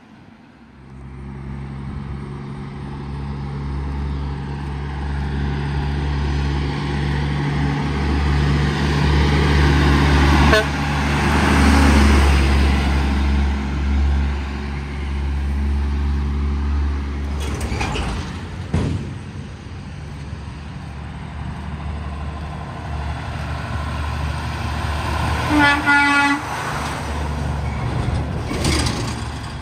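Heavy diesel trucks driving past. A flatbed truck's engine grows louder and peaks about halfway as it passes. A tractor-trailer then passes close near the end, and a short horn blast of about a second sounds as it goes by.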